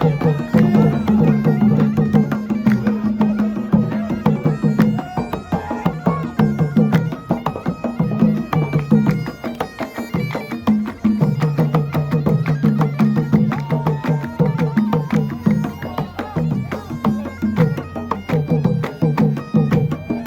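Traditional music played live by a group, with hand drums beating a quick, steady rhythm under a stepping melody.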